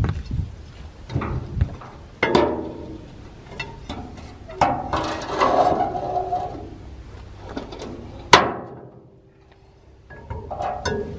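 Steel-on-steel clanking and scraping as a rusted flange plate is pried off the shredder's steel deck with a pry bar. There is a scraping stretch around the middle, then one sharp ringing clank and, after a short lull, more rattling near the end.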